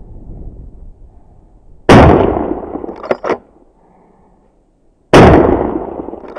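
Two loud shotgun shots about three seconds apart, each trailing off in a long echo and followed about a second later by two short sharp cracks. Wind rumbles on the microphone before the first shot.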